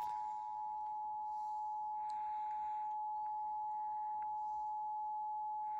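Emergency Alert System attention signal from a DASDEC II encoder: two steady tones sounded together, held at an even level without a break. It announces an emergency alert.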